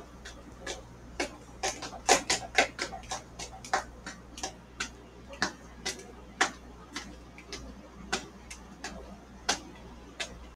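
Footsteps of people walking briskly on a hard floor: an uneven run of sharp taps, about two or three a second.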